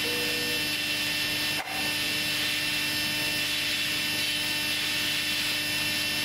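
Dense, steady rasping noise with a few unchanging tones held underneath, dipping out for an instant about one and a half seconds in.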